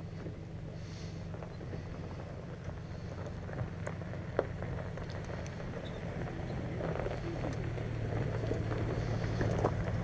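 A vehicle engine running with a steady low hum, with scattered clicks and rattles of gear on the kayak trailer; the hum grows louder over the last few seconds.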